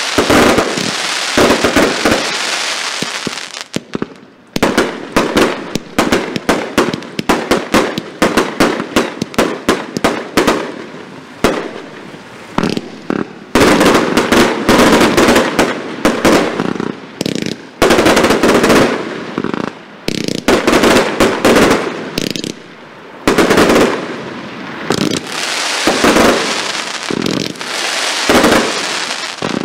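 Geisha 1666 Airforce Display Box, a double compound firework cake, firing: rapid volleys of sharp launch shots and bursting bangs, with a few stretches of dense continuous noise in between.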